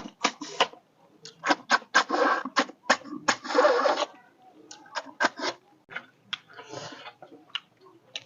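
Close-miked eating: quick wet smacks and clicks of chewing, with a couple of longer slurping sounds about two and three and a half seconds in.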